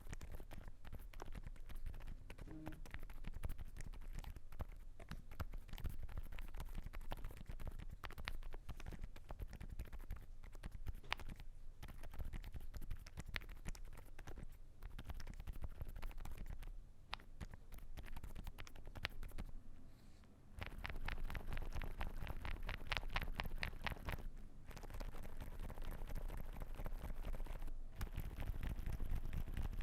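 Continuous typing on a Zoom65 Essential Edition R2 mechanical keyboard with lubed and filmed Alpaca silent linear switches, a polycarbonate plate and Geekark keycaps: soft, muted keystrokes in a steady stream. A short pause about two-thirds through is followed by a quicker run of keystrokes.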